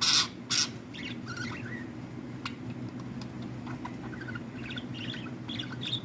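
Female budgerigar chattering: two loud calls in the first second, then soft chirps, clicks and short warbles of budgie song. A steady low hum runs underneath.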